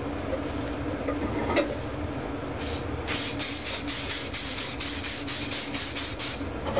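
Aerosol spray can of clear coat lacquer being worked in quick strokes: from about three seconds in, a fast run of short hissing sounds, about four a second, over a steady low hum.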